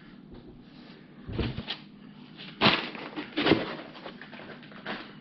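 Hands handling packing in a cardboard shipping box, with a few short rustles and scrapes against the foam inserts and cardboard, the loudest two in the middle.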